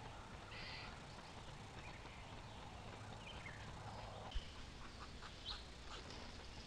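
Faint, scattered bird chirps over a quiet outdoor background with a low steady hum, and one sharp click a little over four seconds in.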